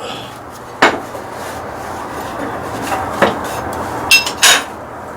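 Several sharp metal clanks and knocks from steel tools and hub parts being handled and set in place: one about a second in, one around three seconds, and two close together near the end, one of them ringing briefly.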